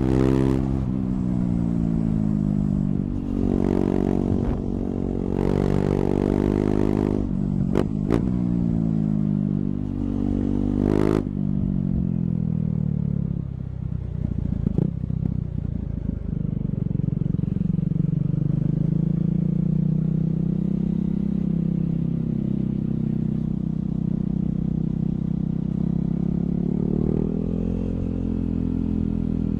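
KTM 390's single-cylinder engine, open-piped with the dB killer removed, revving up and falling back over and over for the first ten seconds or so, with a few sharp cracks about eight seconds in. It then runs more steadily at cruising speed, rising a little near the end.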